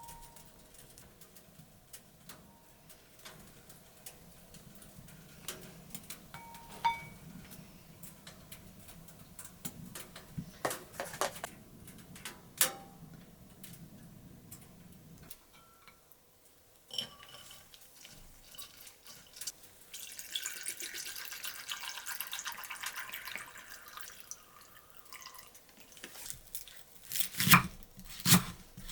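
Small kitchen handling sounds: scattered clicks and knocks with a couple of light clinks, then water running for a few seconds, then a knife chopping on a cutting board, several sharp loud strokes near the end.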